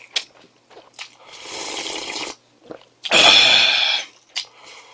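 Two long slurps of hot broth from an instant noodle cup, about a second apart, the second louder and longer.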